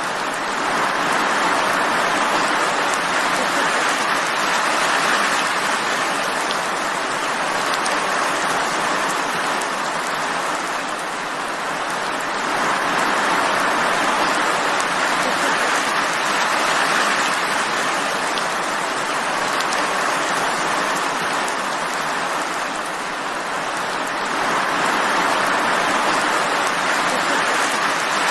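Steady rain falling, a dense even hiss that swells and eases gently every several seconds.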